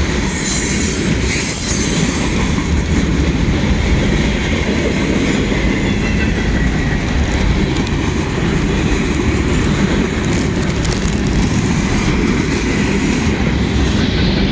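Long freight train rolling past close by: a steady rumble and clatter of steel wheels on rail under the cars, with a faint high wheel squeal in places.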